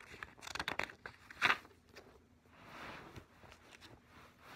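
Pages of a spiral-bound paper planner being turned and handled: irregular crinkling rustles, a sharper, louder rustle about a second and a half in, then a softer swish of a page.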